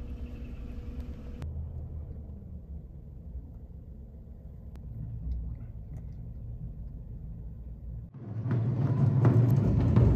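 A car's steady low rumble heard from inside the cabin. About eight seconds in it cuts off and a louder, rougher noise takes over.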